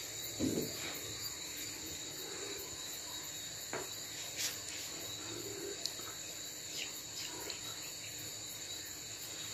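Quiet room tone with a steady high-pitched whine, and a few faint taps and knocks, one about half a second in and a few more around four to six seconds in.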